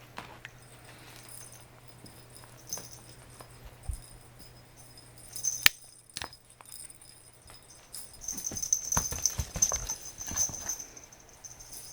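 Light clicks and rattling of a cat toy being pawed and knocked about, with a sharp click about five and a half seconds in and a denser spell of rattling and high jingling from about eight to eleven seconds.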